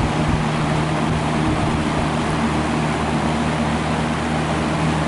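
Vintage Brentwood box fan running steadily at its top speed: a steady motor hum under the rush of air from the blades. The motor is dry and needs oiling, which the owner expects is keeping it from spinning faster.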